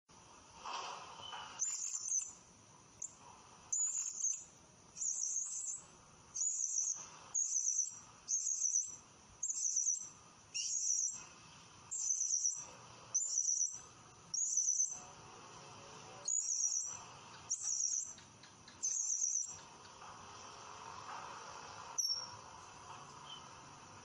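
Male blue-crowned hanging parrot calling: a series of sharp, shrill, short high-pitched notes, roughly one a second, then a pause and one last short note near the end.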